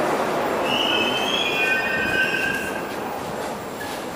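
Soviet-era Ezh-series Moscow Metro train pulling into the platform and braking to a stop, its running rumble fading as it slows. A high-pitched squeal comes with the braking from about half a second in until nearly three seconds in.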